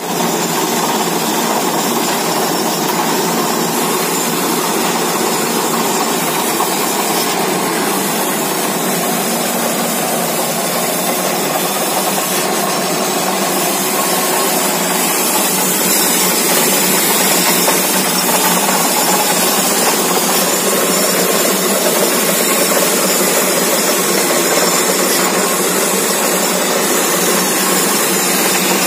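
Borewell drilling rig at work: its engine and drilling gear make a loud, steady mechanical din with a strong hiss.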